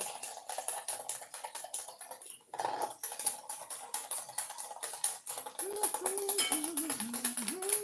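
Wire whisk beating egg whites by hand in a stainless steel bowl: a rapid, steady clicking of the wires against the metal. From about two-thirds in, someone hums a tune over it.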